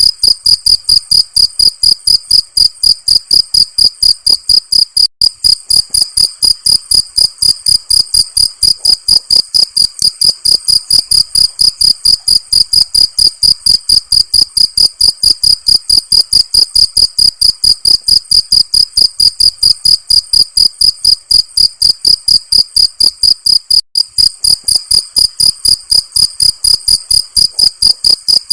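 Cricket chirping steadily and rhythmically, about four high-pitched chirps a second, with two very brief breaks in the pattern.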